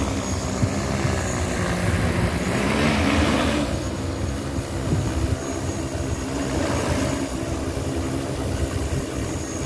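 Propellers and motors of a 20-litre agricultural spraying drone hovering low, giving a steady multi-tone drone with hiss; the rotor noise swells briefly with more hiss about three seconds in.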